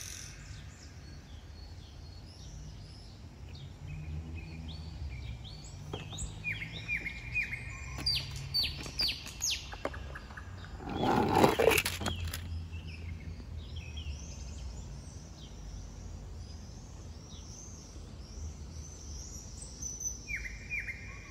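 Small birds chirping repeatedly in short, high calls over a low, steady background rumble. About halfway through comes a louder noisy burst lasting about a second.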